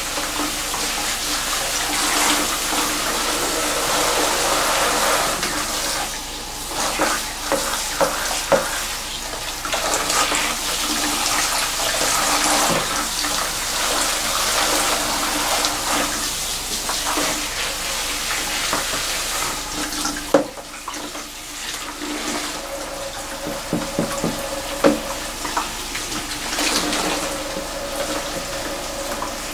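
Salon handheld rain shower head spraying water onto thick wet hair and splashing into a shampoo basin, a steady rush of water, with a few sharp clicks.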